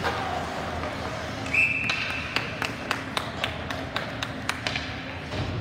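A referee's whistle gives one flat blast lasting about a second, starting about a second and a half in. A run of sharp, irregular clacks follows from the rink, over a low murmur of spectators.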